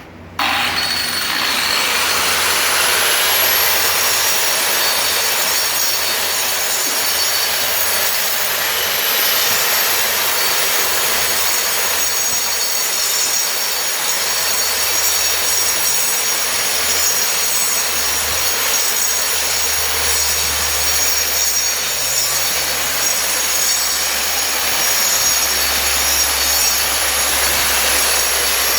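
A 7-inch grinder with a 7-inch cup wheel grinding thinset mortar off a floor. It switches on just after the start, its whine rising to full speed over the first few seconds, then runs steadily with a loud, high grinding noise.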